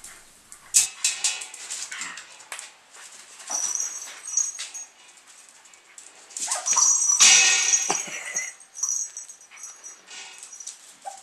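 Five-and-a-half-week-old Lakeland Terrier puppies giving high-pitched squeals and whines in short, irregular bursts, loudest about seven seconds in.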